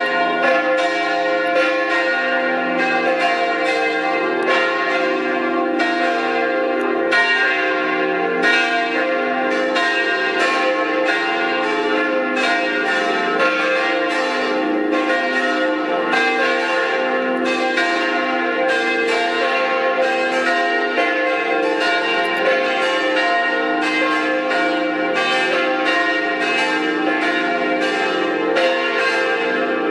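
Several church bells pealing together: a continuous stream of overlapping strikes, two or three a second, each tone ringing on under the next.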